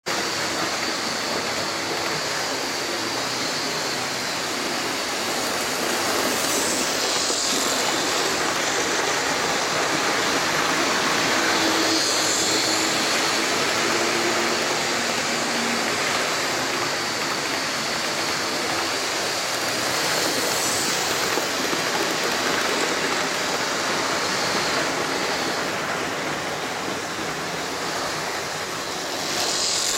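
OO gauge model trains running on the layout's track: a steady rolling rumble of wheels on rail with motor whirr, swelling several times as trains pass close by.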